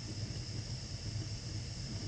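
Wood fire burning in a fireplace: a steady low rumble with an even hiss over it.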